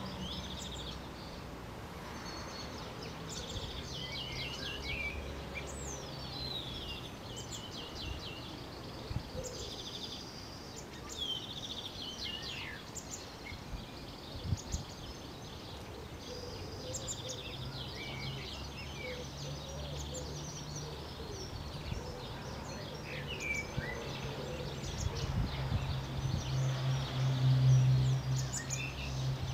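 Several songbirds singing and calling, with varied whistles, sweeping notes and rapid trills, over a low steady hum that grows louder near the end.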